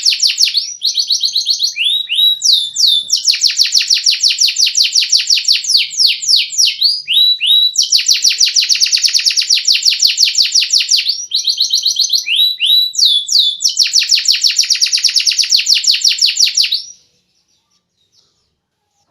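Domestic canary singing: long, rapid trills of quickly repeated notes alternating with short upward-sweeping phrases. It stops abruptly near the end.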